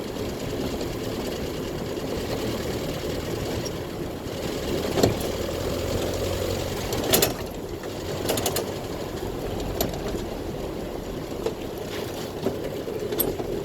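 Land Rover Series II's 2.25-litre four-cylinder petrol engine running while driving, with the tappets audible. A few short sharp clunks are heard about five, seven and eight seconds in.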